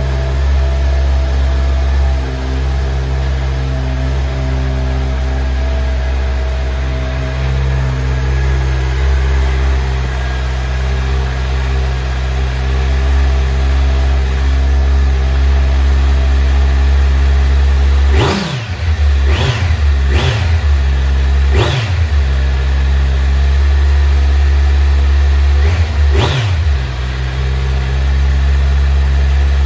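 Stock exhaust of a 2020 Kawasaki Z900's inline-four engine idling steadily soon after a cold start, then revved in four quick throttle blips about two-thirds of the way through and once more near the end, each rising and falling in pitch.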